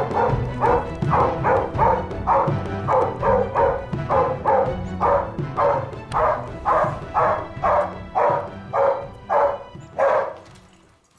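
A hunting dog barking steadily at a wild boar holed up among rocks, about two to three barks a second, stopping near the end. Music plays underneath.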